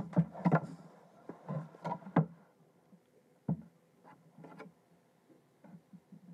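Tabletop handling sounds: a felt-tip marker and a plastic drawing ruler being moved and set down on paper. A quick run of light knocks and clicks comes first, then one sharper knock about three and a half seconds in and a few faint ticks near the end.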